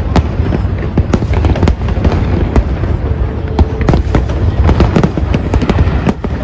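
Aerial fireworks bursting: a rapid, dense series of overlapping bangs and crackles, several a second, over a continuous low rumble.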